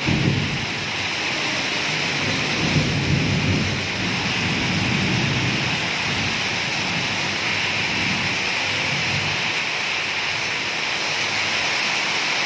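Heavy downpour: dense, steady rain hitting corrugated metal roofs and flooded ground. A low rumble runs under it through the first few seconds and again briefly around nine seconds in.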